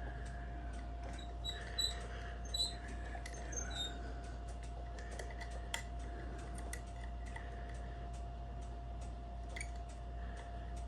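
Homemade lever lock picks working inside a 5-lever mortise night latch: light metal clicks with a few short high squeaks about two to four seconds in, as the levers are lifted and tensioned.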